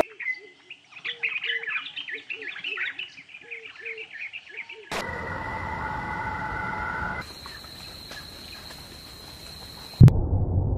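A busy chorus of bird chirps and calls, many short calls overlapping, for about the first five seconds. Then steady humming tones with a thin high whistle. Near the end a loud low rumbling noise starts suddenly.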